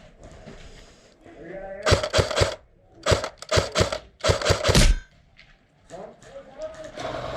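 Airsoft guns firing in three quick bursts of several shots each, about a second apart.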